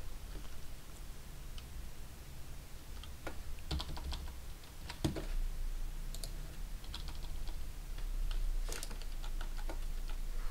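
Scattered, irregular computer keyboard keystrokes and clicks over a faint low steady hum.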